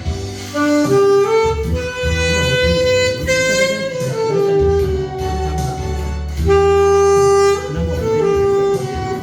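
Saxophone playing a slow, held melody over a backing track with a steady bass line.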